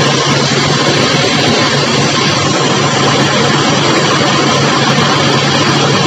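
Pressure washer running: a steady high-pressure water jet hissing onto an air-conditioner evaporator coil and splashing on wet concrete, over the steady hum of the washer's motor.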